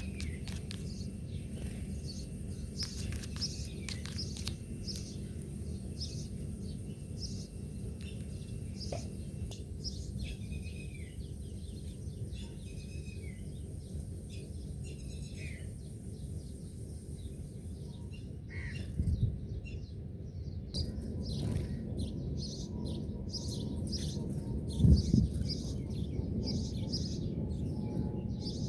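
Small birds chirping, short high chirps repeating about once or twice a second, over a steady low background rumble. Two dull low thumps stand out in the second half.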